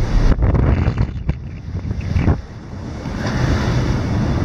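Strong wind buffeting the microphone over the rushing of waves around a sailing yacht in about 25 knots of wind, easing briefly past the middle.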